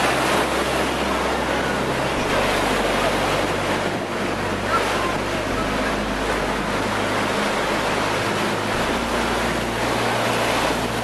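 Ocean surf breaking steadily on a beach, with wind rumbling on the microphone.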